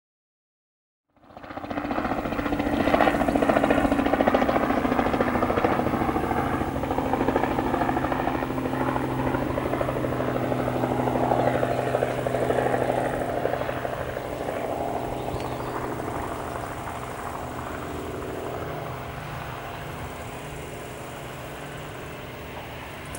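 Airbus A320-214's twin CFM56-5B turbofan engines running at low taxi power as the airliner rolls along and turns onto the runway, a steady hum and whine. It starts suddenly about a second in and grows gradually quieter over the second half.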